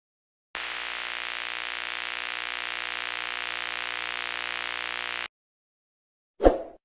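Logo-intro sound effect: a steady static-like hiss layered over a hum of several steady tones, starting about half a second in and cutting off abruptly about five seconds in. Near the end comes one short, loud thump that dies away quickly.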